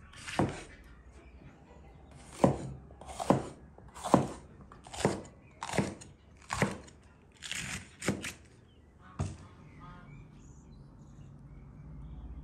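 Heavy chopping strikes, about ten of them a little under a second apart, each with a short ring, stopping about nine seconds in.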